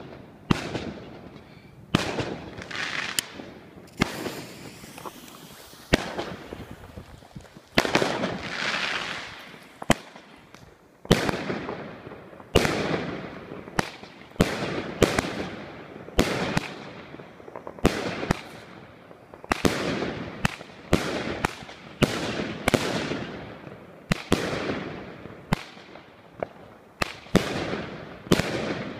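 Lesli Thunder Tales 36-shot salute cake firing: sharp bangs at irregular intervals, roughly one a second, each trailing off in a long echo.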